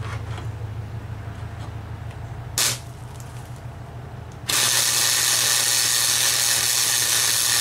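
Wire-feed welder laying a weld onto a steel camshaft to build up a new cam lobe. A brief arc strike comes about two and a half seconds in, then a steady, loud arc crackle starts about four and a half seconds in.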